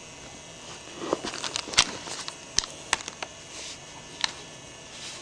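Type 99 Arisaka rifle's safety knob being pushed in and turned: a handful of short, sharp metal clicks with light handling noise between them.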